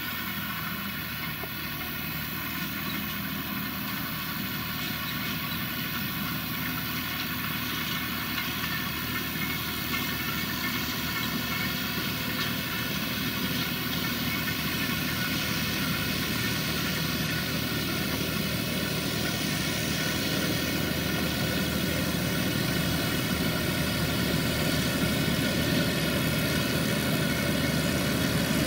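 Valtra tractor running steadily under load while pulling a Krone Comprima V 150 XC round baler that is picking up and baling grass, growing gradually louder.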